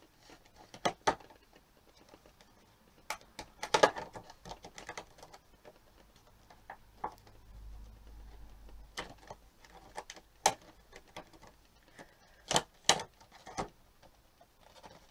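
Cardboard and clear plastic doll box being handled and worked open: scattered sharp clicks and crackles of the packaging, in irregular bunches, with a brief low rumble about halfway through.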